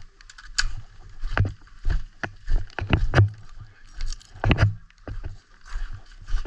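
Footsteps at a walking pace, with gear knocking and rubbing near the microphone: irregular knocks about twice a second over rustling.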